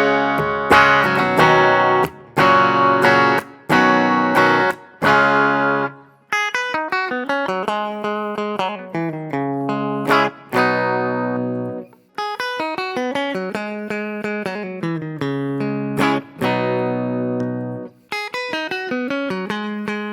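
ESP LTD EC-401 electric guitar played on a clean amp setting through its EMG 81 bridge pickup. Strummed chords with short breaks between them for about the first six seconds, then picked single notes in an arpeggiated pattern.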